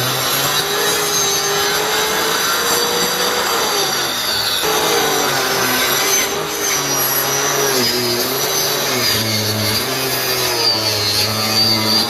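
Bosch marble saw (handheld circular saw) cutting through garapa hardwood. The motor runs continuously, its pitch dipping and recovering as the blade loads in the cut.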